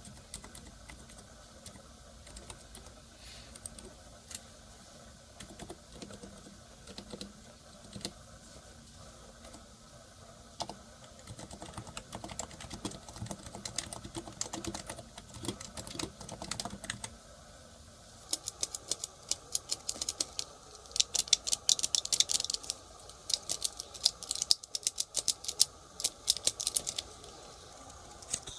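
Typing on a Topre electrostatic-capacitive keyboard (TypeHeaven fitted with OfficeMaster sliders and Cherry MX-style keycaps): scattered keystrokes at first, then fast, louder continuous typing for the last ten seconds or so.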